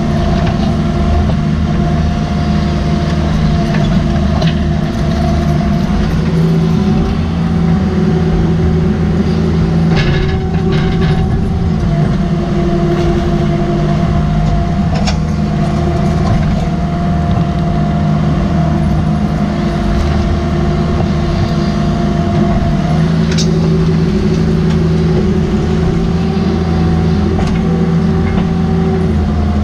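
Cat 305.5E mini excavator's diesel engine running steadily under hydraulic load, heard close from the operator's seat, its note shifting slightly as the boom and tiltrotator bucket work. A few sharp clanks of the bucket in rocky ground: a cluster about ten seconds in and single ones later.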